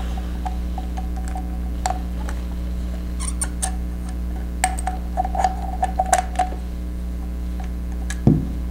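Small scattered clicks and taps of an Argus C-44's interchangeable lens being worked against the camera's bayonet mount, with a firmer knock near the end and a steady low hum underneath. The lens is not seating because its notches are not aligned with the mount.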